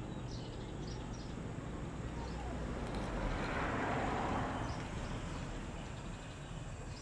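Steady hiss of a gas brazing torch flame heating a copper pipe joint on an air-conditioner compressor. The sound swells a little about halfway through.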